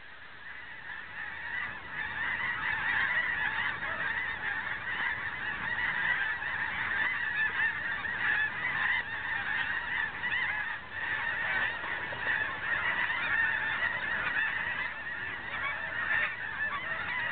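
A large flock of snow geese calling overhead: a dense, unbroken chorus of high honks that swells over the first two or three seconds and then carries on steadily.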